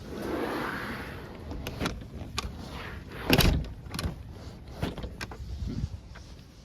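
A door being opened and pulled shut, with a rush of air as it swings, several clicks and knocks from the handle and latch, and a loud thump as it closes about three and a half seconds in.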